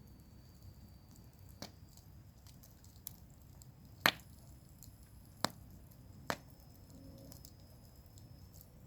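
Campfire burning with a low, steady rumble and five scattered sharp pops of wood cracking in the fire, the loudest about four seconds in.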